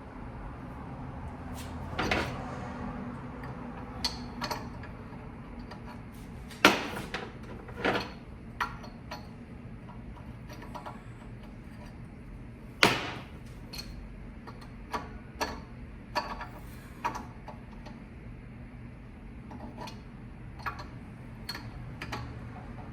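Scattered clicks and metal knocks from a torque wrench being heaved on a crankshaft pulley bolt, the loudest about six and a half and thirteen seconds in, over a steady low hum.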